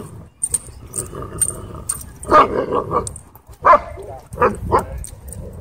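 Dogs barking and growling in a run of short bursts in the second half, while they wrestle roughly.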